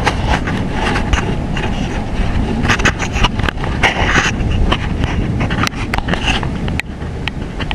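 Bicycle rolling over paved ground with the camera near the handlebar: a steady rumble and wind noise on the microphone, broken by frequent sharp rattles and knocks as the bike goes over bumps.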